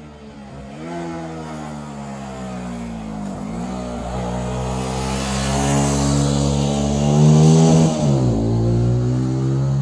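Benelli TNT 125 single-cylinder 125cc engine accelerating through the gears. Its pitch climbs in each gear and drops sharply at the upshifts, about three times, and it grows louder toward the end.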